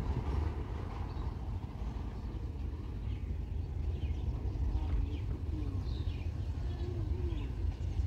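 Birds chirping several times over a steady low rumble, with the chirps mostly in the second half.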